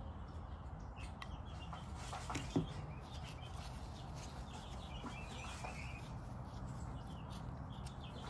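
Faint bird chirps now and then over a low, steady background noise, with a light click about two and a half seconds in.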